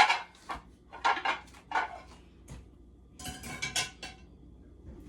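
A baking pan being taken out and handled, clattering and clanking against other cookware in several short bursts, the last cluster about three seconds in.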